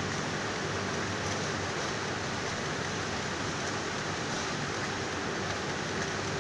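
Yarn winding machine running steadily, an even whirring hiss with a faint hum, as it unravels defective knitted sweater fabric and winds the yarn onto spools.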